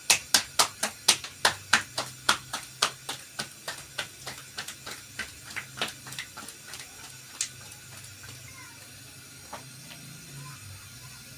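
Hands slapping roti dough flat between the palms, a quick rhythmic patting of about four slaps a second that grows softer and stops after about seven seconds.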